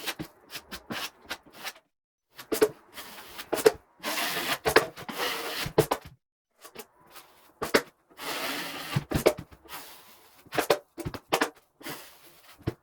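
Drywall knife scraping and spreading premixed joint compound across a wall, with short taps and clicks between strokes and two longer rasping scrapes, about four and eight seconds in.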